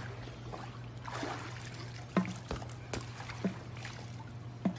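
Swimming-pool water trickling and lapping over a steady low hum, with a few short sharp taps.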